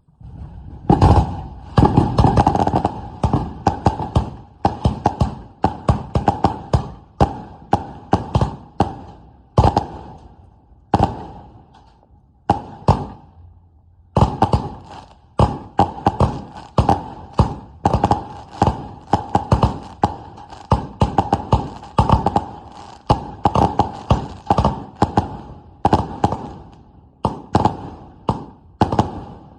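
Eagle Pride consumer firework cake firing a rapid run of loud shots, a few every second, starting about a second in. The shots pause briefly about halfway, then keep going.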